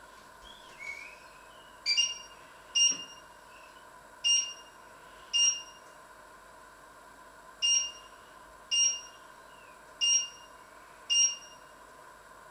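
Electric cooktop's touch controls beeping: eight short, high-pitched electronic beeps in loose pairs, over a steady hum.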